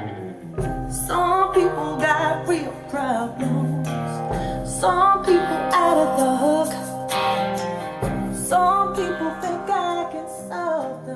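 Recorded music played back through a handmade floor-standing loudspeaker with Tang Band full-range drivers: acoustic guitar with a wordless female voice.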